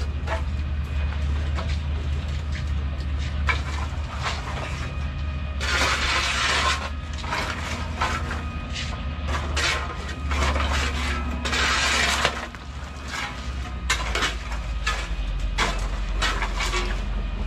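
Dry copra and coconut shell pieces clattering and scraping as a shovel works the pile: many short clicks and crackles, with two longer dense scraping rustles about six and twelve seconds in, over a steady low hum.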